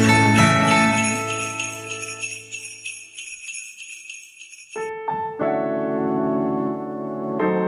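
Music: a song's closing bell-like notes tick rapidly and fade out over the first few seconds. After a brief near-silence, held chords begin about five seconds in.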